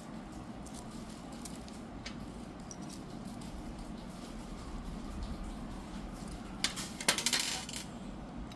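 Stainless steel exhaust band clamp and its bolt being handled and fitted together, with small metallic clicks and a cluster of louder clinks of metal parts knocking together about seven seconds in, over a low steady hum.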